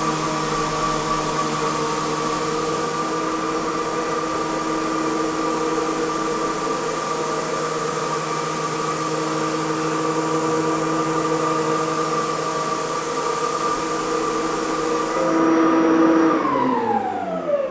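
Lagler TRIO three-disc planetary floor sander running on a hardwood floor: a steady motor hum of several tones over a loud hiss. About fifteen seconds in the hiss cuts off, and near the end the motor winds down, its pitch falling.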